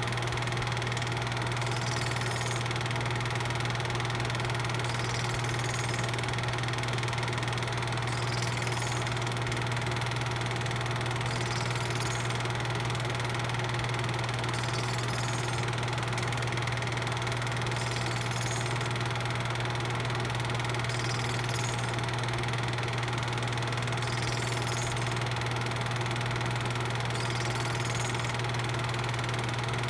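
8mm film projector running: a steady, unchanging low hum with a mechanical whir and no change in pace.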